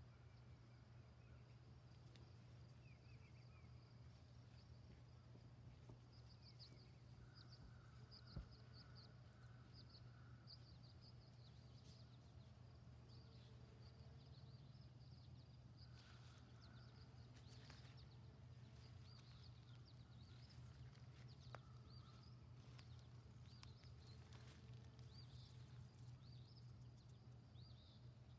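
Near silence: faint outdoor ambience with a steady low hum and many faint, short high chirps scattered throughout.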